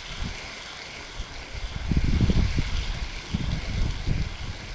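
Wind buffeting the microphone: a low rumble that swells about two seconds in and again near the end, over a steady hiss.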